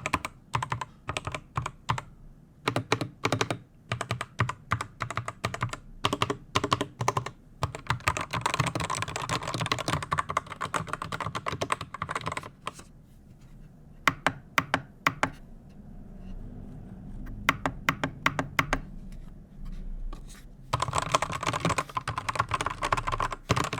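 Rampage Loyal mechanical keyboard with silent red switches being typed on: single key presses at first, bursts of fast typing in the middle and again near the end, and scattered presses between them. The keystrokes are muffled and deep-toned, which the reviewer calls full and quiet.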